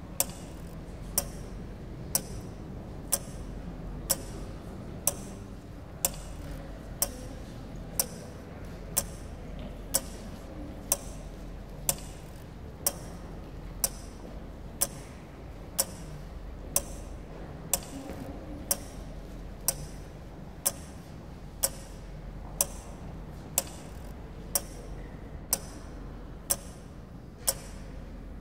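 A clock ticking, one sharp tick about every second, evenly spaced, over a low steady hum.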